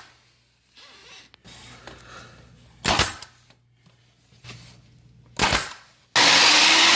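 Nail gun firing twice, about two and a half seconds apart, as quarter round trim is nailed into the baseboard. Near the end a loud, steady power-tool noise starts abruptly.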